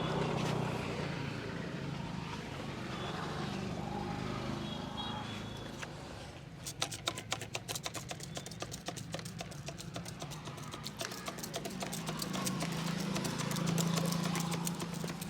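Rapid rhythmic tapping of a barber's hands striking a customer's head in an Indian head massage (champi), several strikes a second, starting about a third of the way in. Before the tapping there is only street noise with a low steady hum.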